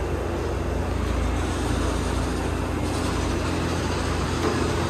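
Steady low engine rumble of a running vehicle, with a constant hum.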